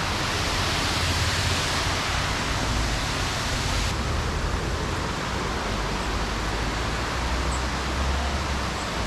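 Steady rush of a large waterfall: a dense, even roar of falling water that does not let up.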